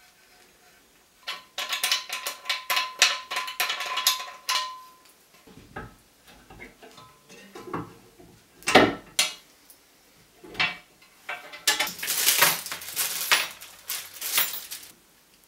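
Hard plastic and metal band saw parts being handled and fitted: two runs of quick clicking and clattering, about a second in and again from about eleven seconds, with a single dull knock near the middle. The later run includes clinking Allen keys and the rustle of the plastic hardware bag.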